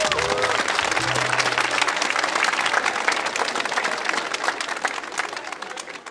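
Large crowd clapping in applause, dense and irregular, dying away toward the end.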